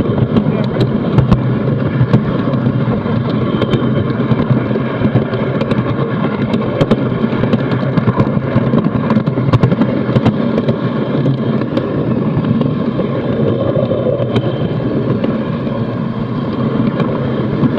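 Steady rumble and clatter of a large-scale garden-railway train running along its track, heard from on board, with frequent sharp, irregular clicks.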